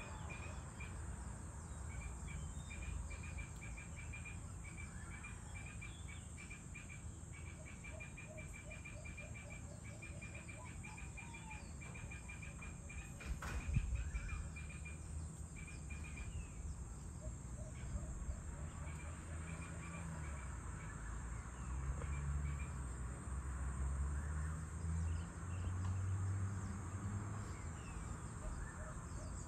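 Evening outdoor ambience: a steady high insect hum with long runs of quick, evenly repeated chirps at two pitches, over a low rumble that swells in the later part. A single sharp knock sounds about halfway through.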